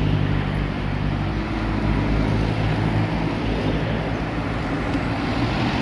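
Steady roadside traffic noise on a highway. A motor vehicle's low engine hum is heard for the first half and fades out about halfway through.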